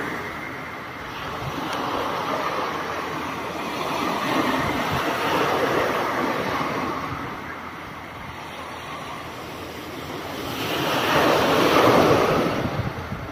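Sea waves washing onto a beach, the surf noise swelling and easing several times with the biggest surge near the end, with wind rumbling on the microphone.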